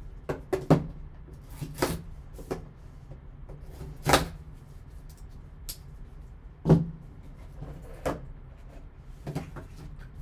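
Cardboard trading-card box being handled and opened: a series of knocks and short scrapes as the box is turned over, set down and its lid slid off. The two loudest are sharp knocks, one under a second in and one about two-thirds through.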